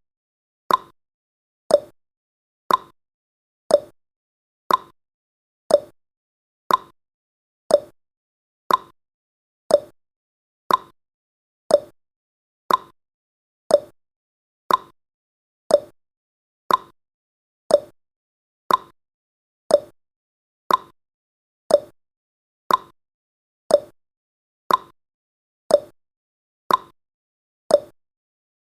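Countdown timer's clock tick-tock sound effect, one tick each second, alternating a higher tick and a lower tock.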